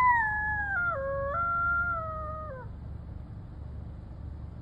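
A lone coyote giving one long howl. The pitch slides gradually downward, drops sharply about a second in, steps back up, then falls away and ends about two and a half seconds in.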